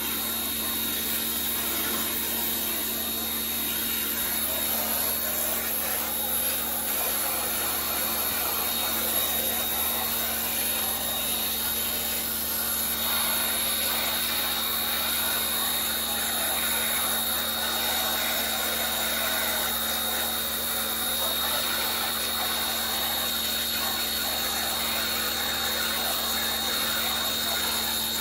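Pressure washer running steadily as it sprays, a constant machine noise with a high steady whine.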